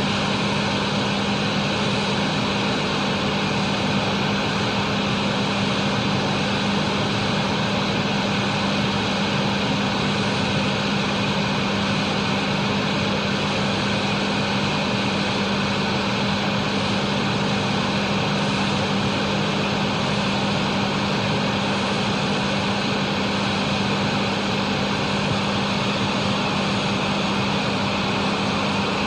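Exhaust fan running steadily: an even rush of air with a steady motor hum underneath.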